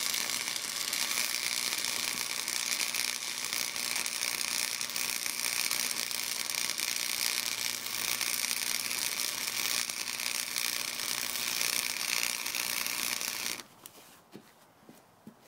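A 90-amp flux-core wire welder's arc crackles and hisses steadily as a bead is run along a steel T-joint at close to maximum current. It cuts off suddenly about 13 seconds in.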